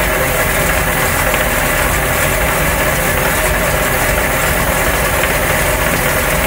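Inboard boat engine running with its Paragon P44R marine transmission engaged in reverse: a steady mechanical drone with gear noise from the gearbox. The noise is the sign of the transmission's rear reduction gear teeth coming apart.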